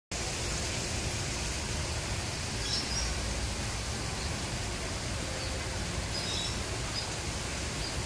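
Steady outdoor ambient hiss with a few faint, short, high bird chirps: a pair about three seconds in and several more from about six seconds on.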